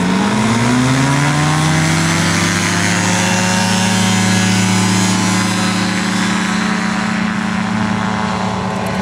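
Two-stroke engine of a Kolb FireFly pusher ultralight run up to full takeoff power. The pitch rises over the first second or so as the engine revs up, then holds steady through the takeoff run and liftoff.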